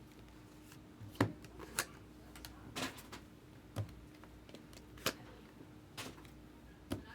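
Scattered light clicks and taps, about seven in all at irregular intervals, from handling trading card packs and cards on a table.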